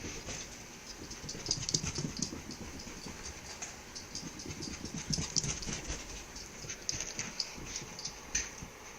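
A small Chihuahua–Jack Russell mix dog and a cat playing chase: scuffling, with a scatter of quick, light clicks and scrapes.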